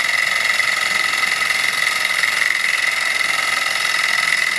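Small gamma-type walking-beam Stirling engine running fast with its belt-driven generator: a steady mechanical whirr with a high whine, the model vibrating hard, which the owner puts down to an oversized flame driving it too fast and an out-of-balance flywheel.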